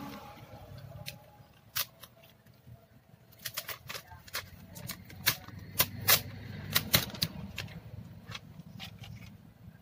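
Sharp plastic clicks and crackles from hands working a replacement laptop keyboard and its black plastic film into the top case, coming thickest around the middle, over a faint low hum.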